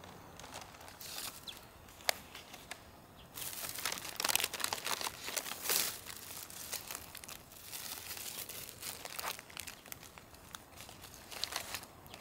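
Plastic takeaway bag and paper food wrappers crinkling and rustling as a hamburger and fries are unpacked by hand. At first there are only a few scattered crackles; the crinkling turns dense about three seconds in.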